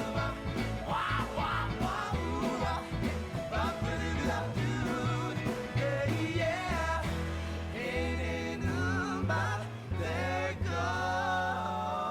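A rock-and-roll song playing, with a sung vocal line over a steady drumbeat and bass.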